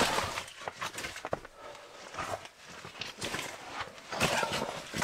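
Split firewood knocking and clattering as pieces are lifted out of a canvas log carrier and stacked by hand beside a wood stove, with rustling between the knocks.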